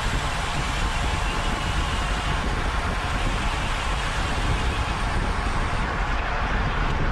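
Steady wind rush and road noise heard on a racing bicycle's camera at speed, the low end of the wind buffeting the microphone.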